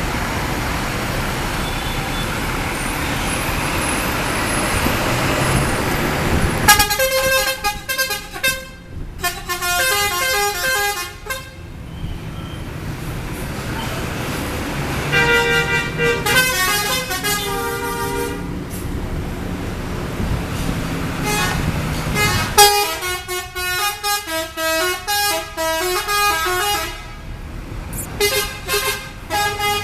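Telolet horns on Purnayasa coaches: multi-tone bus air horns playing quick, shifting melodic tunes in several bursts, starting about seven seconds in, again around fifteen seconds and from about twenty-three seconds. Steady engine noise runs before and between the bursts.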